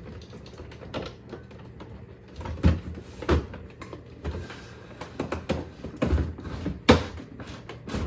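Plastic knocking and clicking as a refrigerator ice maker assembly is slid along its rail and lined up in the freezer compartment: irregular taps and bumps, with a few louder knocks.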